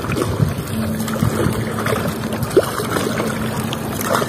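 Lake water sloshing and splashing around a bamboo raft as it is pushed along with a bamboo pole, with wind on the microphone.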